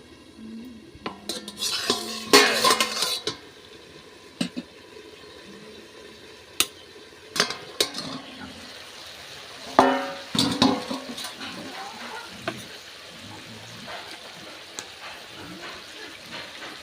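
A utensil stirring and knocking against a cooking pan, with clusters of clinks at about two and ten seconds in, over a faint steady sizzle of food frying.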